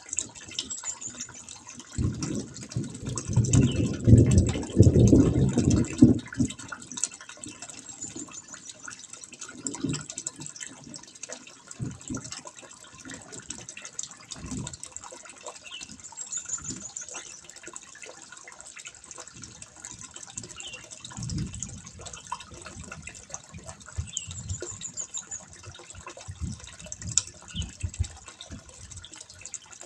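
Water trickling and splashing into a fish pond, a steady fine patter. About two seconds in, a loud low rumble lasts for about four seconds, and a few shorter low thumps come later.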